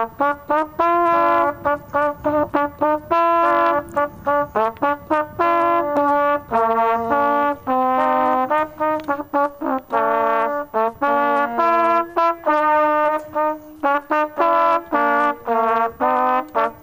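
A solo trumpet-type brass instrument plays a tune, mostly in short, separated notes with a few held longer.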